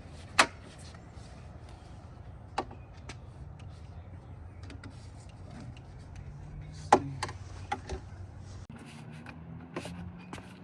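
Sharp plastic clicks and knocks of car door trim pieces and clips being pressed and snapped into place, a few seconds apart with the loudest near the start and about seven seconds in, over a steady low hum.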